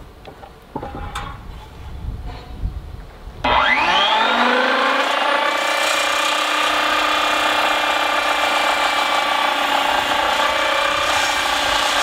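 A few light knocks, then about three and a half seconds in a large circular saw starts with a rising whine. It settles into a steady loud run as it cuts through a 6x6 cedar beam.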